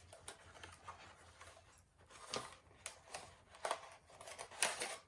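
A small product box being opened and its packing handled: irregular rustling, scraping and clicking of cardboard and plastic, with the sharpest sounds in the second half.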